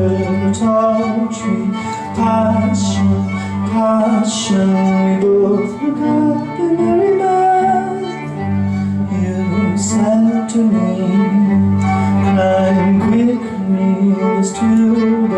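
Live band music in an instrumental passage: violin and guitar over a steady bass line, with cymbal hits scattered through.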